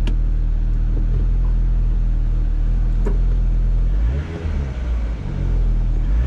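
2013 Mini Cooper engine running with a steady low hum, the note wavering and dipping about four seconds in before it settles again. The exhaust is leaking where the rusted-out flex pipe enters the flange, held only by a clamp.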